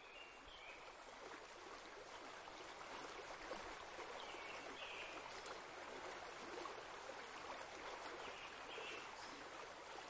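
Shallow river flowing and rippling over its bed, a faint steady rushing that swells slightly. A few short, faint high chirps sound over it, about half a second in, near the middle and again near the end.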